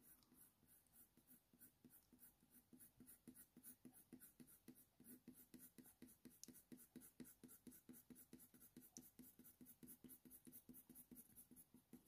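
Faint, quick scratching of a Faber-Castell Polychromos colour pencil shading with light pressure on hot-press watercolour paper, several short strokes a second, starting about three seconds in.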